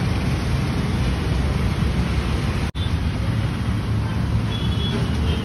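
Steady outdoor background noise like road traffic, with wind on the microphone. It drops out for an instant about three seconds in.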